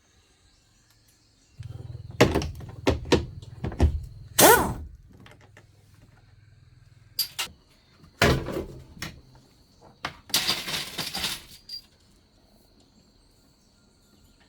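A run of sharp knocks and clatter like parts or tools being handled, over a low hum; two more knocks follow, then a short hiss about ten seconds in. A faint steady high tone runs underneath.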